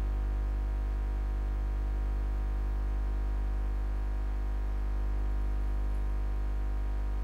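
A steady low mains hum, a 50-cycle buzz with a stack of even overtones that does not change.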